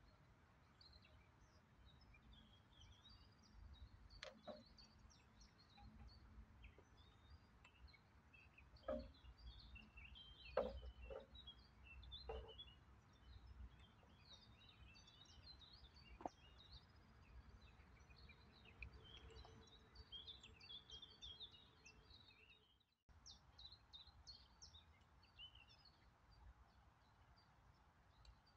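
Faint songbirds chirping and singing throughout, over a low wind rumble. A few sharp knocks and bumps in the first half, the loudest about ten seconds in.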